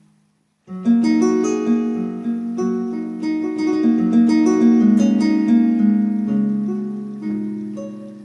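Synthesized strings playing a cascading run of overlapping plucked-sounding notes, entering after a brief silence under a second in and ringing away toward the end.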